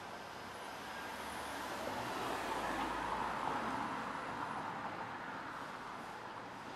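A vehicle passing on the street, its noise swelling to a peak about halfway through and then fading away.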